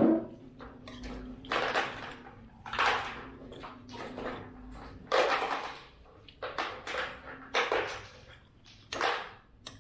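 Close eating sounds of a man slurping soto broth from a spoon and chewing it with rice, heard as a string of short noisy slurps and smacks, several seconds apart at first and closer together later.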